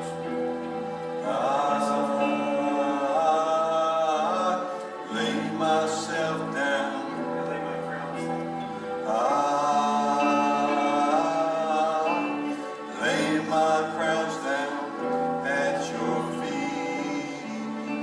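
A Christian worship song: singing voices over a sustained instrumental accompaniment with long held chords and bass notes.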